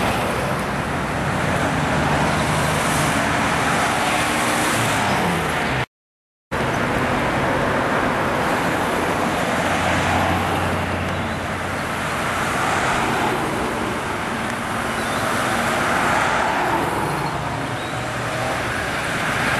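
Classic cars driving past in road traffic: engines running and tyre noise, one engine's pitch falling as it passes about five seconds in. The sound drops out for about half a second near six seconds in, at an edit, then traffic noise resumes.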